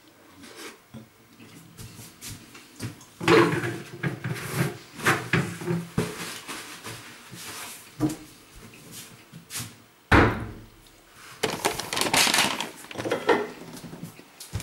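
Household handling sounds as belongings are moved and packed: irregular knocks and rustling, with a louder knock about ten seconds in.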